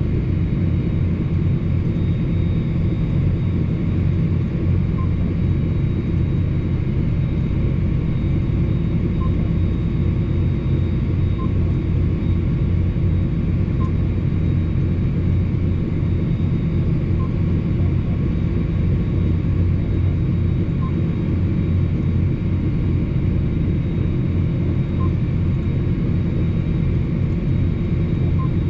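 John Deere 8245R tractor's six-cylinder diesel engine running steadily under load, towing a tandem trailer, heard from inside the cab as an even, low drone.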